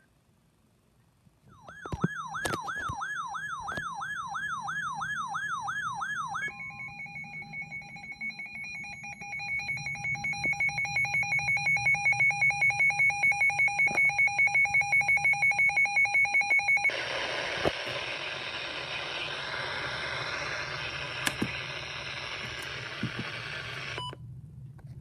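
Electronic emergency alert tones between alert messages: a tone warbling up and down about twice a second for some five seconds, then a steady two-pitch tone that breaks into fast pulsing, then about seven seconds of harsh static-like hiss that cuts off suddenly near the end.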